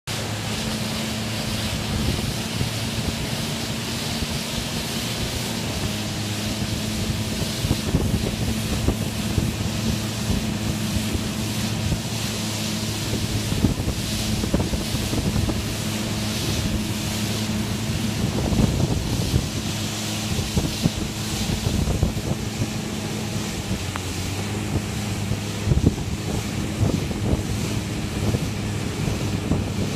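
Outboard motors running steadily at cruising speed, a constant engine hum, over the rush of the boat's wake and wind buffeting the microphone in irregular gusts.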